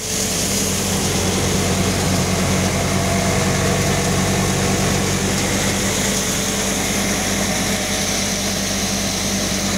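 Multi-crop grain thresher running steadily, a loud, even machine drone with a low hum, while threshed grain pours out of its outlet chute.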